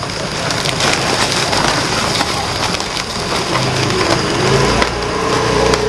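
Crackling and rustling of a woven plastic sack and its packing as a large sailfin lizard is pulled out of it, with many small crinkles and scratches. A low steady hum comes in about two-thirds of the way through.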